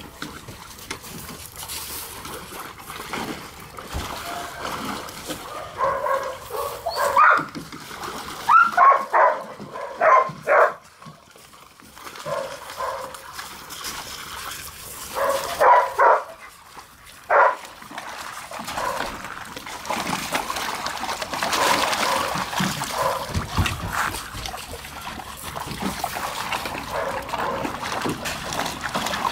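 Dogs barking in two runs of short, loud barks through the middle, over the sloshing and splashing of dogs wading in water-filled plastic kiddie pools. The water noise grows fuller in the last third.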